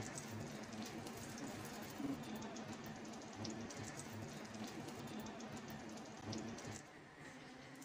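French toast sizzling as it fries in a nonstick pan, a dense patter of small crackles and pops; it quietens about seven seconds in.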